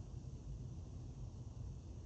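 Quiet room tone: a low steady rumble with a faint even hiss, and no distinct clicks of the pick.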